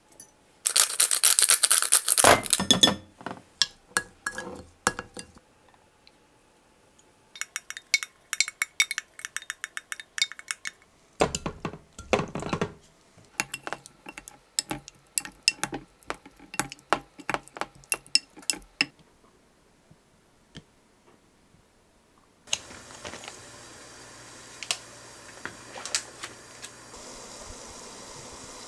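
A metal spoon clinking and scraping against a glass container as a dressing is stirred, a short clatter as cherry tomatoes are tipped in, then rapid clicking as they are mixed. After a pause a steady hiss with a low hum takes over: a pan of water heating on the stove.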